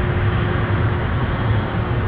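Jet engines of a twin-engine widebody airliner running on the runway as it turns to line up: a steady rush of engine noise over a low rumble, with a faint steady hum.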